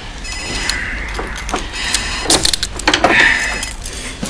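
Metal handcuffs rattling and clicking as they are unlocked. An electronic telephone ring trills during the first second.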